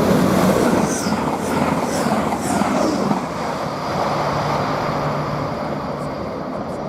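Class 180 diesel multiple unit passing along the track, loudest at the start and fading slowly. In the first three seconds there is a run of short high squeals from the wheels and rails, falling in pitch, about two a second.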